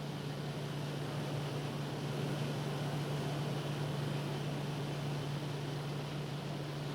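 Steady machinery hum of a ship's engine room: a constant low drone over even noise, with no strokes or changes.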